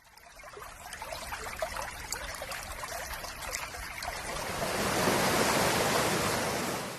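Running water trickling and splashing, swelling to a louder, fuller rush about five seconds in, then easing slightly.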